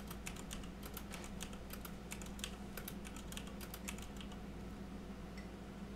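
Typing on a computer keyboard: a quick run of key clicks entering numbers into a settings field, thinning out after about four seconds. A steady low hum sits underneath.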